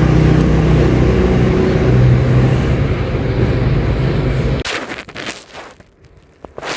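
A loud, steady low rumble that cuts off suddenly a little over four and a half seconds in, followed by a few soft clicks.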